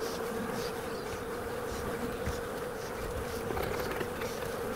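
Honeybee colony buzzing around an open hive: a steady, even hum of many bees during a frame inspection.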